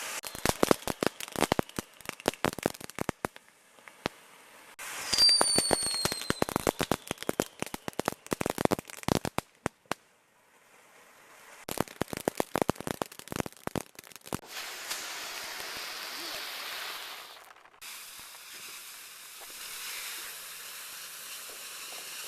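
Small consumer fireworks crackling in rapid runs of sharp pops, in three spells. A whistle falls slightly in pitch about five seconds in. Near the end the crackling gives way to a steady hiss.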